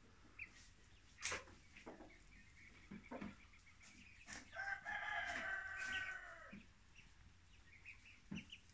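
Faint chicken calls: a few short clucks, then a drawn-out call of about two seconds near the middle.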